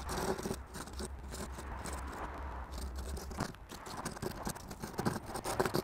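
Soft, irregular scratching of a small piece of green hazel wood rubbed by hand on a sheet of sandpaper, smoothing its frayed edges.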